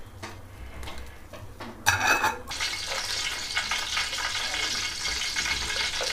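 Ghee melting and sizzling in a hot aluminium pot: quiet at first, then a steady high sizzle from about two seconds in. A brief metallic clatter as the steel ladle is set down in the pot marks its start.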